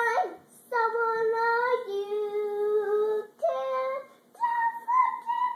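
A young girl singing, holding long notes in a few phrases with short pauses between them.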